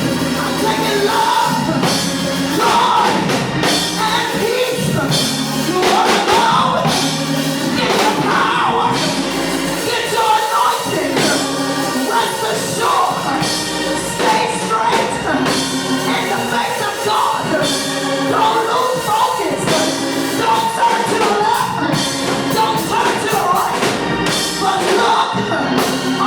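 Live church music with singing: sustained instrumental chords and a regular beat under a sung voice.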